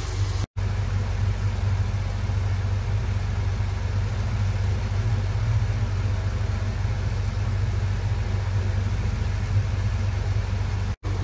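Palm sugar and tamarind sauce simmering and bubbling in a small pot on the stove, under a steady low hum. The sound drops out for an instant twice, about half a second in and near the end.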